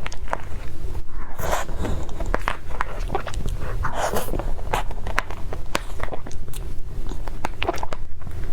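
Close-miked eating: chewing with many small mouth clicks, and two longer, louder smacks about a second and a half and four seconds in.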